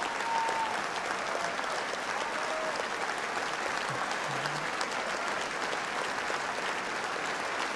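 Large audience applauding, a dense, steady clapping that holds evenly and stops abruptly at the end.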